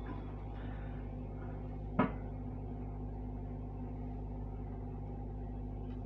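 Steady low mechanical hum of a running motor, with one sharp knock about two seconds in.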